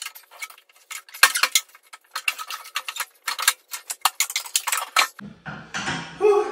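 Metal clinking and clanking as the dozer's steel box is worked loose and lifted off: many irregular sharp clicks for about five seconds. Near the end a low strained grunt from the effort of the lift.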